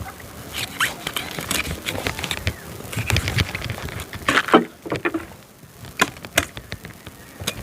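Irregular taps, clicks and knocks of a whole yellowfin tuna being handled and cut with a knife, with one louder knock about four and a half seconds in.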